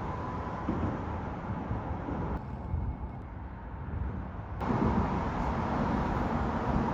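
Outdoor noise of wind rumbling on the microphone while riding, with road or traffic noise mixed in. The noise changes abruptly twice, dropping about two and a half seconds in and growing louder again past the midpoint.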